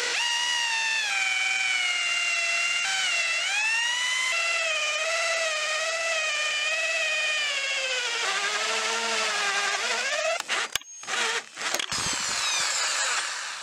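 Small electric power tool's motor whining at high speed, its pitch sagging and recovering as it is loaded against the work. Near the end it cuts out briefly with a couple of sharp clicks, then runs again.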